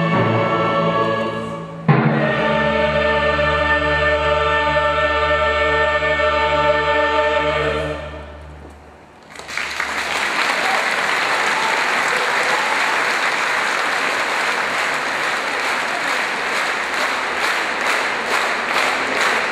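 Choir and symphony orchestra end a piece: a short chord, then a loud final chord entering about two seconds in and held for some six seconds before it dies away. The audience then breaks into applause that fills the rest of the time.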